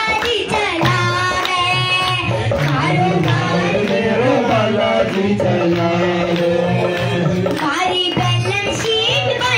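Hindi devotional bhajan performed live: a girl's voice singing into a microphone over a hand-drum rhythm and a steady held accompaniment note.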